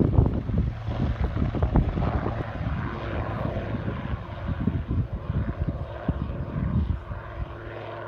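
Helicopter flying past with a steady engine and rotor drone, mixed with wind gusting on the microphone.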